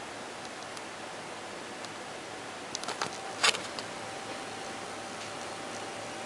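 Steady hiss of a desktop PC's fans, with a cluster of small clicks and one sharp knock about three and a half seconds in, after which a faint steady whine runs on.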